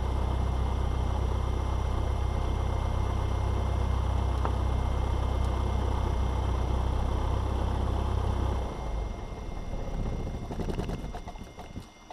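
Cessna 172's engine idling steadily, heard from inside the cockpit, then shut down about three-quarters of the way through: the steady note drops away and sputters unevenly as the propeller runs down, with a few sharp clicks near the end.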